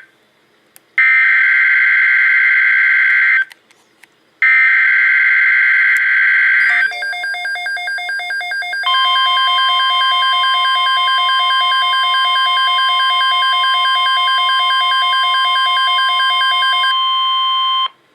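Emergency Alert System SAME header: two harsh screeching data bursts of about 2.5 s each, a second apart, announcing a severe thunderstorm watch. Then about two seconds of rapid beeping and a long, steady single-pitched alert tone for about eight seconds.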